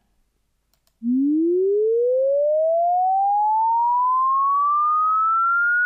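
A pure sine tone from VoceVista Video's sound generator sweeping linearly upward from A3 (220 Hz) toward A6 (1760 Hz). It starts about a second in, and its pitch climbs quickly at first and then more and more slowly.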